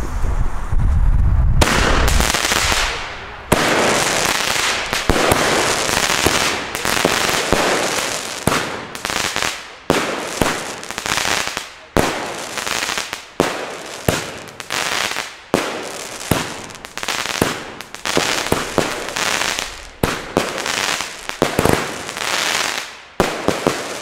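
Pyroland '4 vor 12' consumer firework battery (cake) firing a long volley of shots and bursts. The shots come thick and fast at first, then settle to about one and a half a second, each with a short fading tail.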